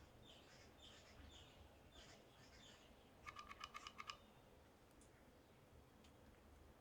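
Faint handling noise: a string of soft, short high squeaks, then a quick run of about eight clicks a little over three seconds in.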